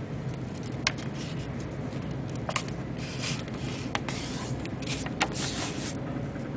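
A sheet of paper being folded in half and creased: rustling with a few sharp crackles and short swishes, over a steady low background hum.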